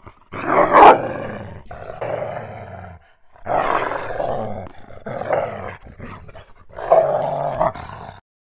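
Werewolf growls in three long, rough stretches with short breaks between them, the last one steadier in pitch; it cuts off abruptly near the end.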